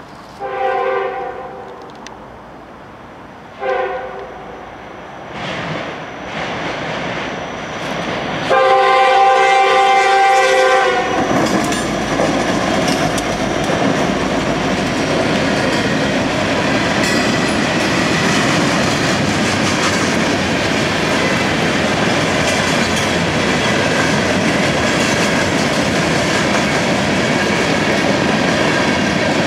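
Freight train's locomotive air horn sounding several blasts as it nears the crossing, the last one held about two seconds. Then the NYS&W SD60 locomotives pass close and the freight cars roll by, with steady loud wheel-on-rail noise.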